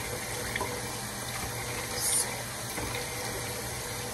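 Bathroom sink tap running in a steady stream, briefly louder with a splash about halfway through as hands wash the face.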